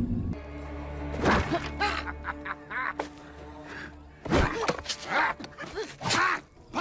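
Film soundtrack: a low sustained music drone with several sudden thuds and knocks over it, the loudest about a second in, about four seconds in and near six seconds in.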